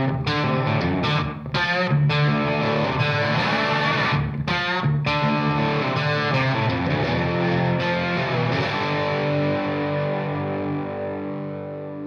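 Outro music: distorted electric guitar playing chords with effects, ending on a held chord that slowly fades.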